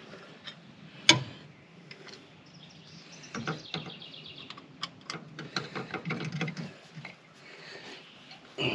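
Scattered clicks and knocks of hand tools on metal, with one sharp clank about a second in and a run of short clicks in the middle, while work goes on at the truck engine's air compressor.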